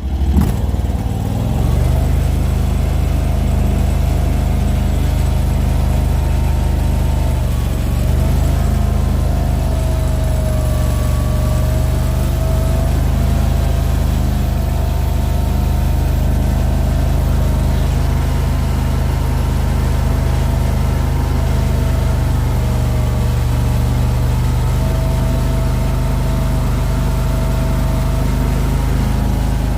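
Mini skid steer's engine throttled up, climbing over the first couple of seconds and then running steadily at high throttle, with a whine above it that wavers slightly in pitch.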